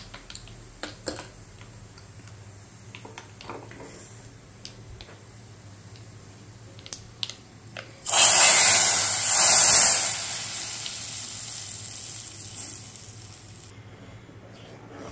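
Tadka (hot oil fried with spices) poured into dal in a pressure cooker: a sudden loud sizzle about halfway through that holds for about two seconds, then dies away over the next few. Before it there are only faint scattered crackles from the oil in the small tempering pan.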